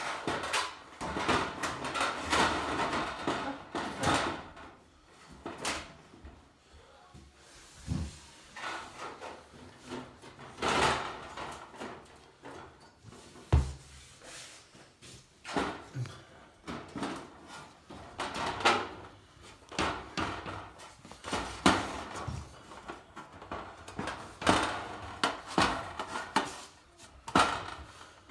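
Hand work on shower tiling: irregular knocks, clacks and scraping, with a couple of heavier thuds, one about eight seconds in and one about thirteen seconds in.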